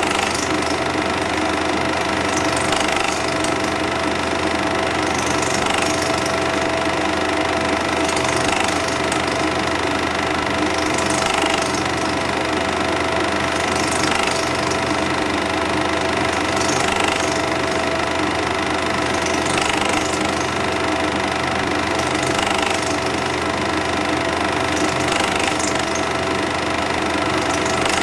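8mm cine projector running: a steady mechanical whir and rattle with a constant hum, and a brief hiss about every three seconds.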